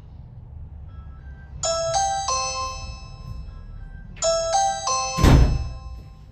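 Ring doorbell chime playing a three-note ding-dong tune twice, about two and a half seconds apart: the newly installed doorbell ringing when its button is pressed. A loud thump follows about five seconds in.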